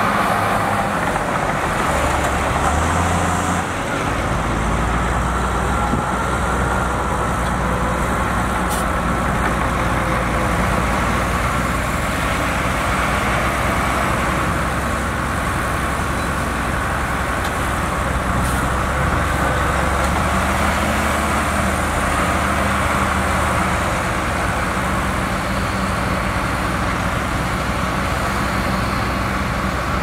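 Heavy diesel engine of earthmoving machinery running steadily. Its note shifts lower a few seconds in, then holds.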